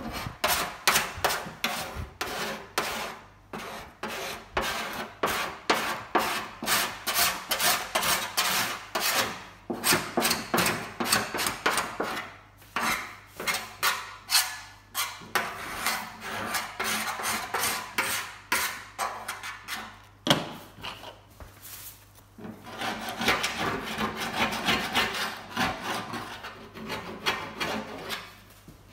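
Repeated hand strokes of a stripping tool working over the metal VW Beetle engine lid, about two strokes a second, with a brief pause about twenty seconds in.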